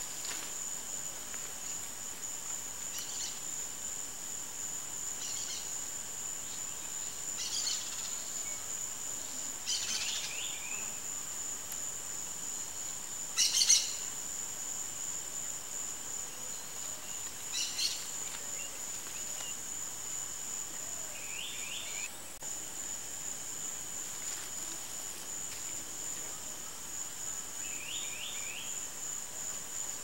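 Evening countryside chorus: a steady high insect trill with short bird calls every few seconds. The loudest call comes about halfway through, and there are three brief clusters of quick, curving chirps.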